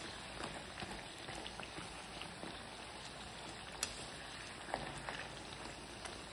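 Papdi deep-frying in hot oil in a steel kadhai: a steady fine sizzling crackle. Twice near the middle there is a sharp light click as the wire spatula touches the pan.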